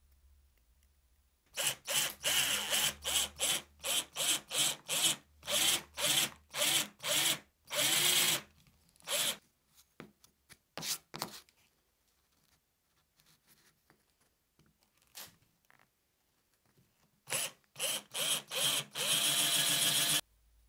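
Electric drill boring into a wooden block with a twist bit, the motor pulsed in many short trigger bursts. A few brief blips follow, then more bursts ending in a steadier run of about a second.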